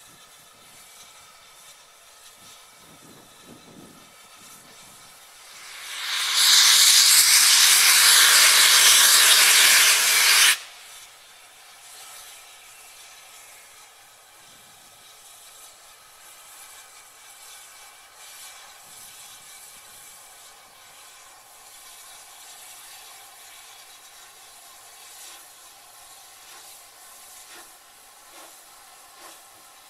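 Steam locomotive letting off steam: a loud, steady hiss swells in about six seconds in, holds for about four seconds and then cuts off abruptly. Faint background sound follows.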